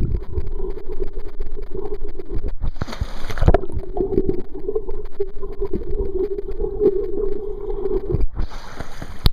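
Kayak turned over in the water during a roll attempt: water sloshing and gurgling around the hull, with irregular thumps and a couple of louder splashy surges.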